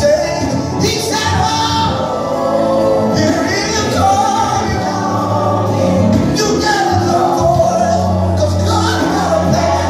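Live gospel song: a male lead singer with female backing vocalists over a band, with sustained low notes underneath.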